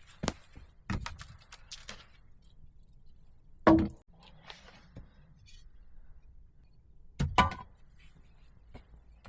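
Irregular heavy knocks of wood being worked: two lighter ones early, a loud one a little after a third of the way in, and a double knock near the end, with faint clicks and rustling between.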